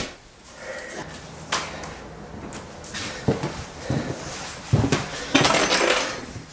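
Scattered knocks and clinks of hard objects, with a louder rattling clatter for about half a second just past five seconds in.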